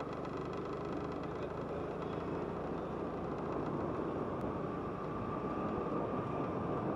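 Motorcycle engine running at low speed, steady, with road and wind noise, heard from on board the moving bike.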